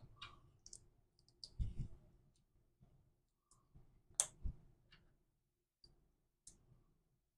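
Plastic LEGO pieces clicking as they are handled and pressed together: faint, scattered clicks at an irregular pace, with the loudest click and a soft knock about halfway through.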